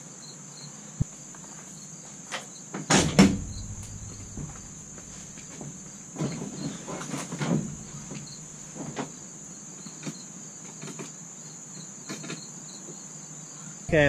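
Crickets chirring steadily, with scattered clunks and knocks of handling, the loudest a clatter about three seconds in. No engine cranking or running.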